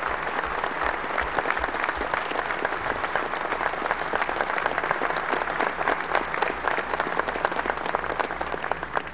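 Audience applauding, a dense, sustained clatter of many hands clapping that eases off near the end.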